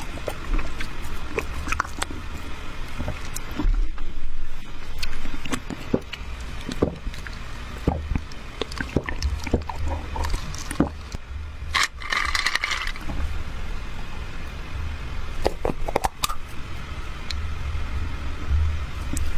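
Close-miked eating sounds: chewing with many short wet clicks and smacks over a low rumble, and a louder sticky, smacking stretch about twelve seconds in.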